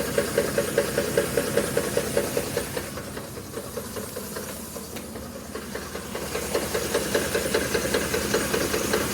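A Ford 5.4-litre three-valve V8 idling with a steady, rhythmic knock. The knock dips a little in the middle and comes back louder near the end. The owner suspects the cam phasers rather than the timing chain, and says it has gotten louder over the last few days.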